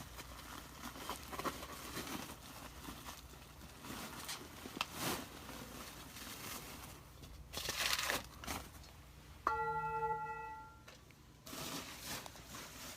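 Packing paper and plastic wrap crinkling and tearing as Tibetan singing bowls are unwrapped. About nine and a half seconds in, a bowl is struck once and rings with several clear, steady tones for about a second and a half, then cuts off.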